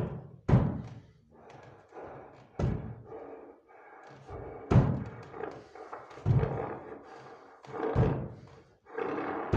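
Heavy thuds at a slow, even pace, about five of them roughly two seconds apart, each ringing briefly. Faint music sounds between them.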